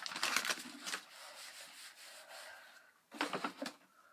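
Packaging rustling and crinkling as it is handled, with a short run of crackles about three seconds in.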